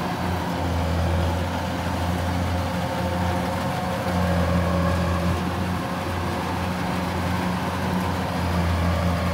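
Kubota DC-105X rice combine harvester's engine running steadily as the machine works through the crop. It is a deep, even drone that does not rise or fall.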